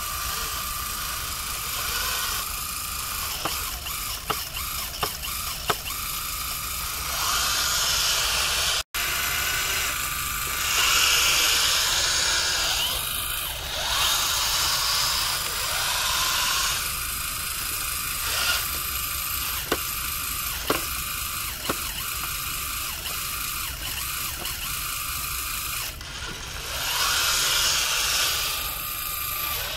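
Small electric motors and hydraulic pump of a radio-controlled model wheel loader whining steadily, swelling in a few louder surges as it works its bucket, with scattered sharp clicks.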